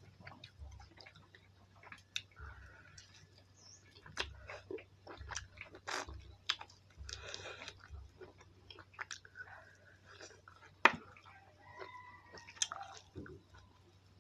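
Close-miked eating sounds: irregular chewing and biting with wet mouth clicks and smacks, the sharpest about eleven seconds in.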